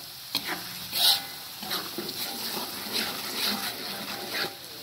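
Spice paste frying in oil in a wok, with a metal spatula scraping and stirring it in repeated short strokes.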